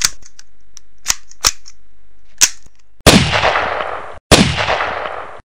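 Gunshot sound effects: several short, sharp cracks in the first two and a half seconds, then two loud gunshots about a second and a quarter apart, each trailing off in a long echo.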